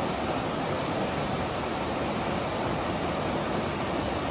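Mountain stream rushing over rocks in a fast rapid: a steady, even roar of white water. The stream is running high after heavy rain.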